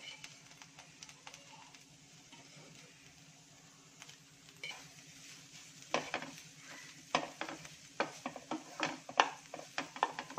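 Wooden spatula stirring and scraping boiled boneless chicken pieces with fried onions in a non-stick pan, over a light sizzle. Faint at first, then a quick run of scraping strokes from about six seconds in.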